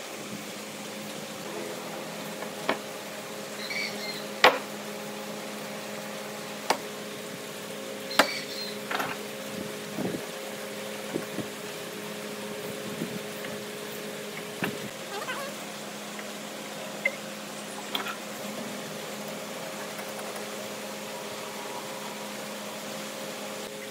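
A steady low hum with about a dozen scattered sharp knocks and clicks; the loudest knock comes about four and a half seconds in.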